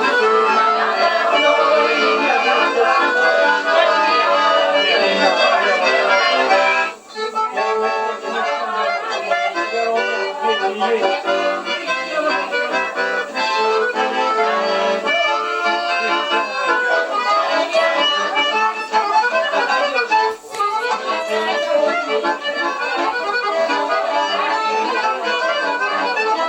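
Bayan (Russian button accordion) playing a tune, briefly breaking off twice, about seven and twenty seconds in.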